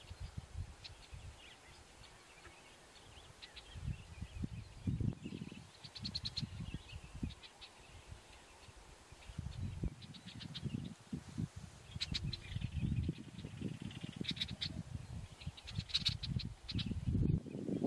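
Small birds calling: several quick chirping trills and scattered chirps, over a low, uneven rumble.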